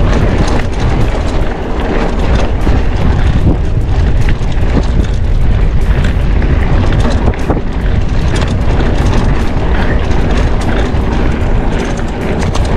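Steady wind rumble on a handlebar-mounted camera's microphone while a mountain bike rides a rough dirt road, with many small rattles and knocks as the bike jolts over the bumps.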